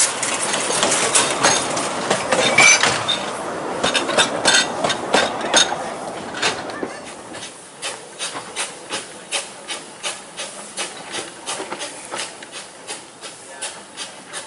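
A 2 ft narrow-gauge steam locomotive passing close below with steam hissing and many sharp knocks. After six or seven seconds this gives way to a regular clickety-clack of the train's wheels, about two to three clicks a second, fading as the train moves away.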